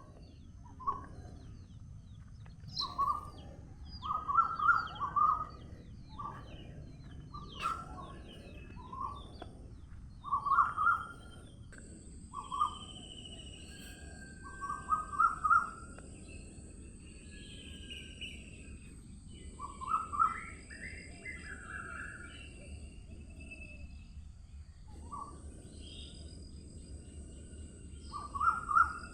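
Birdsong: one bird repeats short, loud phrases of quick rising notes every couple of seconds, with fainter higher chirps from other birds over a low steady background rumble. A thin, steady high-pitched hiss joins about twelve seconds in.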